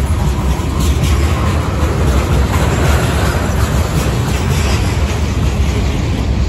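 Freight train's tank cars and covered hopper cars rolling past close by: a steady, loud rumble of steel wheels on rail, with occasional light clicks.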